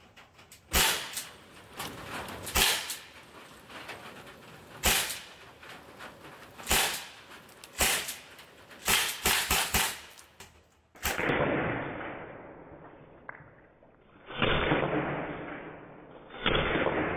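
Sig Sauer MPX Gen 2 .177 CO2 pellet rifle firing about a dozen sharp shots, some in quick runs of three or four. The pellets strike a metal tin can. About eleven seconds in, the sound turns muffled and holds three longer, fading bursts.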